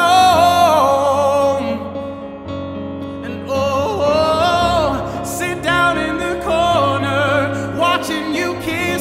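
Male voice singing long, wordless held notes with vibrato over backing music of sustained low chords, the voice pausing briefly about two seconds in before coming back.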